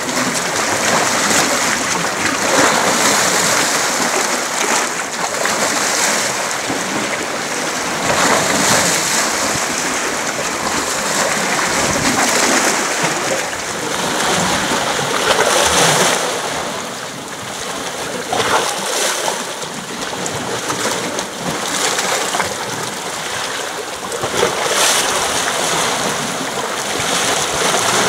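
Small waves washing in and splashing against a rocky shore, the surf swelling and easing every few seconds.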